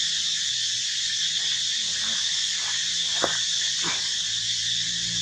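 Steady high-pitched insect chorus, with two short, sharp animal squeaks about three and four seconds in.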